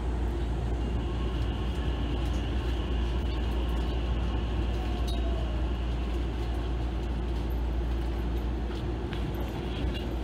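Hankyu 9000 series electric train creeping along the platform to a stop, heard from the leading car: a steady low rumble and running noise, with a faint high whine that fades out about halfway through.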